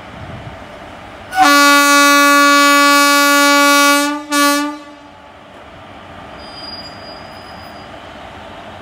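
Indian Railways WAP-4 electric locomotive's horn: one long steady blast of about two and a half seconds, then a short second blast, over the steady running noise of the train pulling out.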